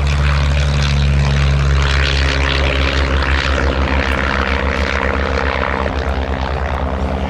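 Propeller engine of a de Havilland Chipmunk light aircraft running steadily, with a rapid low throb.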